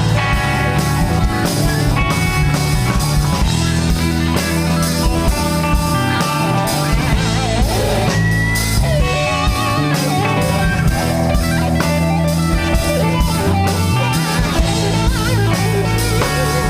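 Live rock band playing an instrumental passage: electric guitars carrying the melody over bass guitar and drum kit, with a guitar note bending upward about eight seconds in.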